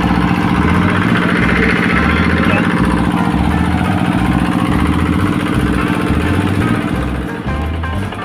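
Irrigation water pump's engine running steadily with a constant hum, which drops away near the end.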